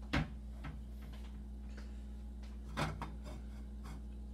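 Two knocks over a steady low hum: a sharp one just after the start and a softer, duller one about three seconds in.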